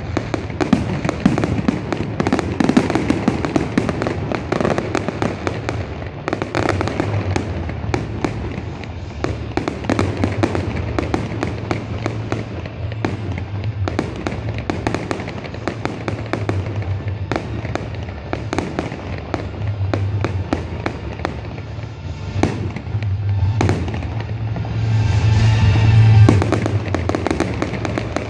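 Fireworks display: aerial shells bursting in a dense, continuous run of bangs and crackles, with music playing underneath. It swells louder near the end.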